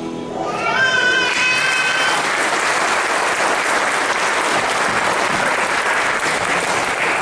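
Audience applauding, taking off about a second in as the dance music ends, with a short rising cry at the start.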